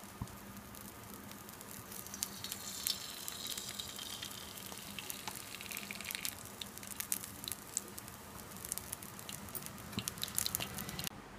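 Cooking oil poured into a hot iron kadai, sizzling with a steady hiss and many sharp crackles and pops. The sound cuts off abruptly near the end.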